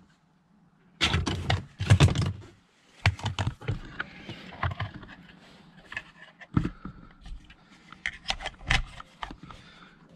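Plastic clicks, knocks and rustle of a trailer brake controller being unclipped and pulled off its Velcro-backed dash mount, with the loudest cluster about one to two and a half seconds in and scattered smaller clicks after.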